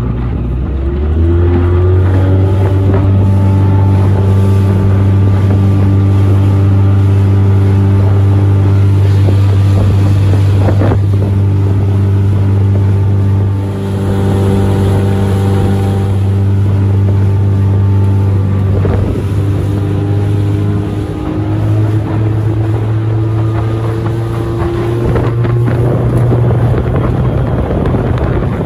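Outboard motor of a small open boat running under way, revving up in the first second or so and then holding a steady drone. It dips briefly about halfway, then rises in pitch in the second half as the throttle opens further. Wind buffets the microphone.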